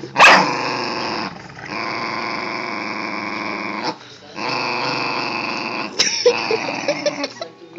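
Dogs, one of them a Rottweiler, growling in a tug-of-war over a towel: long rough play growls broken by two short pauses, with a loud sharp burst of sound just after the start.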